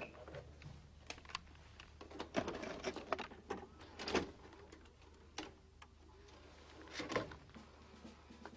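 Scattered small clicks, taps and brief scratchy rustles of objects being handled, over a steady low hum.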